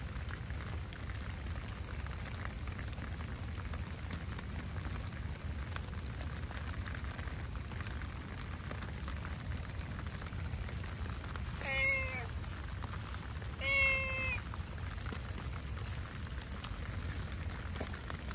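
Orange-and-white stray cat meowing twice, two short calls about two seconds apart, over the steady hiss of heavy rain.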